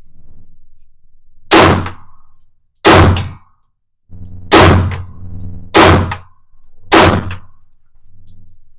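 Handgun fired five times in a slow string, about one shot every 1.1 to 1.6 seconds, each sharp report ringing briefly off the walls of an indoor range.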